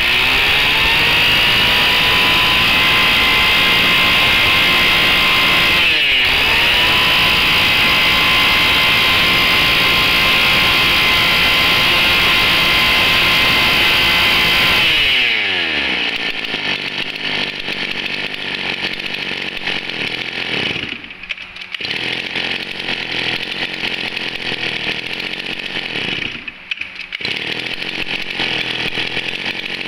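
Hitachi 33cc two-stroke brush cutter engine revved up from idle and held at high speed, with one brief dip about six seconds in. About halfway through the throttle is let off, and it runs down to a steady idle, dipping briefly twice.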